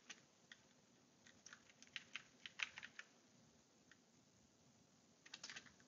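Faint keystrokes on a computer keyboard: scattered taps through the first three seconds, then a quick run of several keys near the end.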